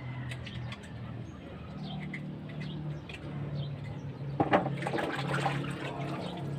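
Water sloshing and splashing in a plastic basin as a snakehead fish is plunged in and rinsed, starting suddenly about four seconds in, with a low steady hum underneath.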